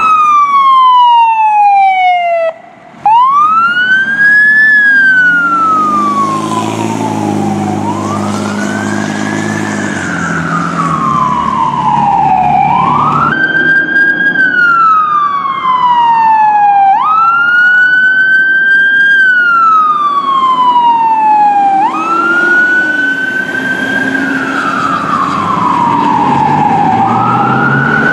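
Fire engine wail sirens rising and falling slowly, a few seconds per sweep, the cycle breaking off and restarting several times. A lower steady tone sounds under the siren for several seconds near the middle.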